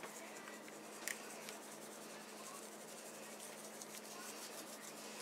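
Faint scratchy rustle of a dry spice rub being sprinkled from a gloved hand onto raw chicken pieces, with a few light ticks, over a low steady hum.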